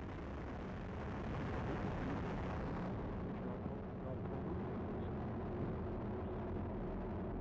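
Atlas V rocket's RD-180 main engine and solid rocket boosters in full thrust during the first seconds of ascent: a steady, low rumbling noise that loses some of its high end about three seconds in.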